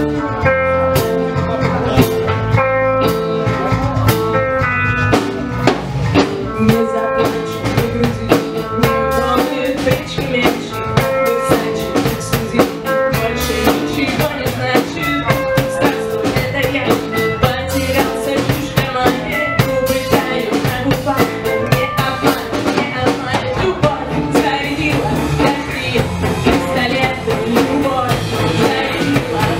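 Live rock band playing: electric guitars and a drum kit keeping a steady beat, with a female lead singer. The playing grows fuller in the last few seconds.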